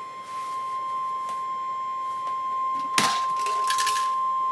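Weather alert radio sounding its steady single-pitch alarm tone, the warning-alarm tone that comes before a severe thunderstorm warning broadcast. About three seconds in, a sharp knock and a second of rustling sound over it.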